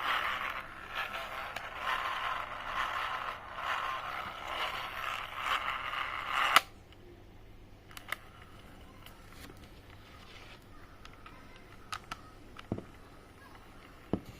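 Sony WM-DD33 cassette Walkman's tape mechanism whirring with a scraping sound for about six and a half seconds, then cutting off suddenly with a click. Later come a few sharp clicks of its buttons. This is the fast-forward/rewind drive, which is malfunctioning.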